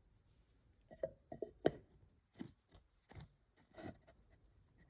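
A handful of light, sharp knocks and taps, several close together and then a few more spaced out, as a small turned oak and resin box is handled.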